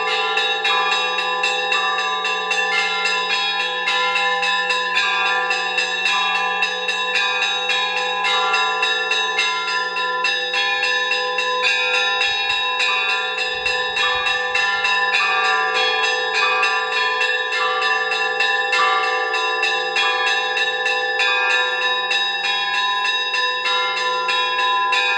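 Several church bells in a monastery bell tower rung by hand by a monk. The strikes come fast and overlap, so tones at several pitches ring on together without a break.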